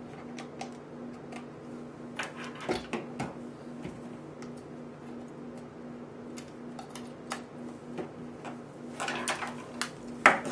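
Scattered clicks and taps of USB cables being handled and a connector pushed into a port of a USB wall charger. The clicks come in small clusters a couple of seconds in and again near the end, where the loudest click falls, over a steady low hum.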